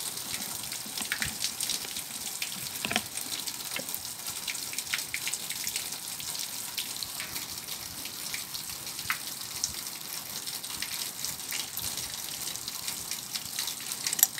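Steady hiss of running water, with scattered light clicks of metal parts being handled.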